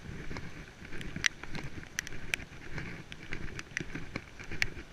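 Rain falling in a downpour, with sharp irregular ticks, about two a second, of drops striking close to the microphone over a low rumble.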